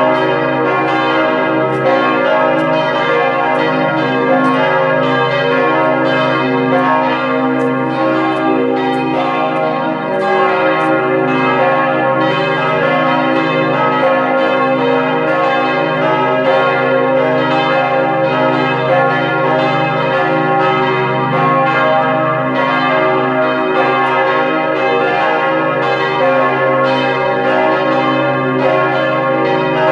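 Several church bells cast by Perner ringing together in a peal, their strikes overlapping a few times a second, each stroke leaving a long hum.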